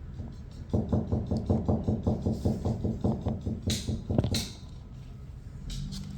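Small pet gnawing on something hard with its teeth: a fast, even run of knocking bites, about seven a second, lasting about four seconds.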